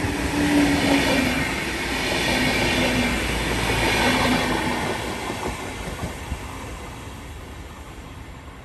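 Renfe Class 470 (UT470) electric multiple unit running past close by: wheels rumbling and clattering on the rails, with a low hum under the noise. It fades steadily from about halfway through as the train moves away.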